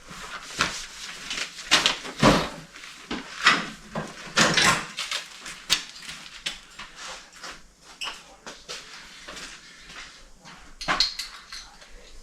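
Irregular clicks, knocks and rattles of metal mirror-clamp hardware being handled and fitted to a UTV's A-pillar, with a couple of heavier thumps.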